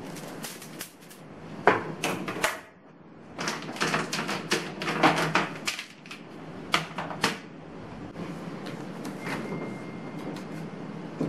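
Household objects being handled: quick runs of sharp clicks and knocks, like containers, lids or cupboard doors being set down and closed, loudest in the first half and fainter near the end.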